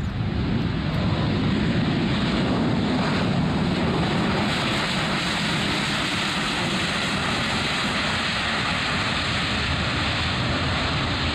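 Twin jet engines of a Boeing 737 airliner during its landing roll. The steady jet roar swells over the first couple of seconds, then holds at an even level.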